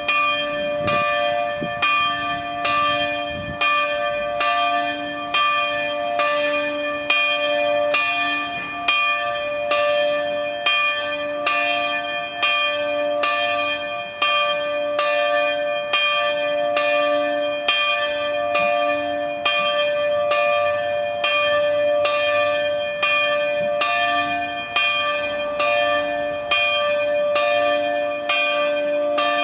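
Church bells being rung. The strokes come evenly, about every three-quarters of a second, and the bells' notes keep ringing on between the strikes.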